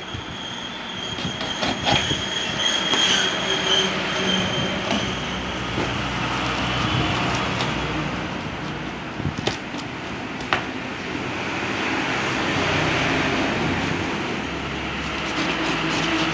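Packing tape being picked at and peeled off a cardboard shipping box: continuous crackling and scraping of plastic tape and cardboard, with a faint high squeal in the first few seconds and a couple of sharp clicks near the middle.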